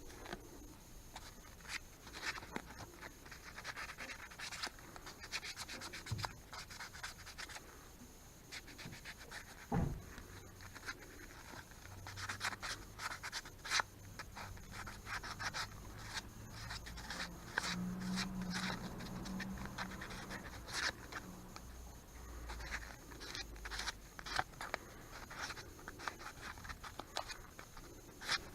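Hand work on a scooter's brake caliper: rubbing and scraping, with scattered small clicks and taps and one duller knock about ten seconds in.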